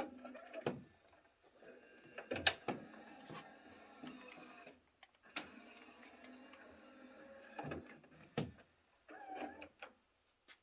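Yamaha CDC-655 five-disc CD changer's mechanism whirring, with a few sharp clicks along the way, as its disc tray or carousel moves.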